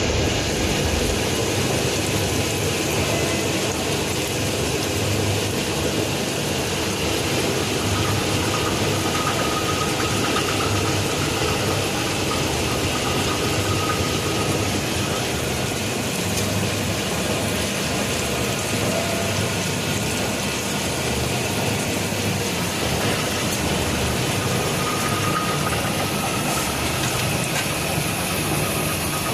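Steady mechanical running noise, even and unbroken, with no clear rhythm or distinct knocks.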